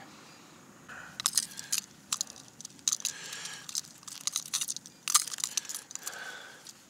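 Gloved hands and camouflage jacket sleeves handling a small zander freshly pulled onto the ice and freeing the lure: irregular crunching, rustling and sharp clicks.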